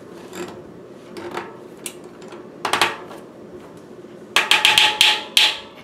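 Cassette lockring being tightened onto a rear hub with a lockring tool: scattered light metal clicks and taps, then a quick run of loud metallic clicks about four and a half seconds in.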